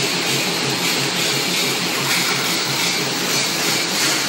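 Screw-making machine running in a factory: a steady mechanical din with a quick regular beat, about four to five strokes a second.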